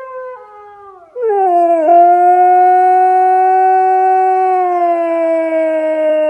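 A faint dog howl from a phone's speaker, then, about a second in, a much louder long howl from a husky, held on one pitch and slowly sinking.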